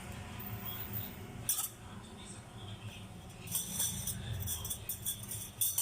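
Metal utensils and dishes clinking several times, in a cluster about midway and once near the end, over a low steady hum.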